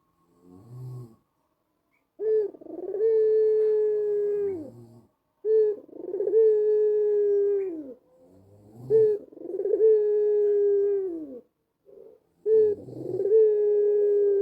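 White ringneck dove with a black collar (puter putih kalung hitam) cooing its long 'anggungan' call. There are four long drawn-out coos, each holding one low pitch and dropping away at the end. A short soft note comes about a second in.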